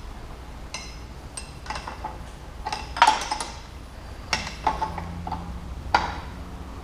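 Wrench clinking and tapping against steel hydraulic hose fittings as they are snugged tight: a scatter of short, sharp metallic clinks, the loudest about three seconds in.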